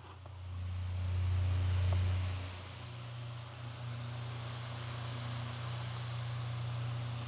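Kuo Horng 9-inch table fan running, its small C-frame motor humming under a steady rush of air from the blades. The hum swells for the first two seconds or so, then shifts slightly in pitch and settles.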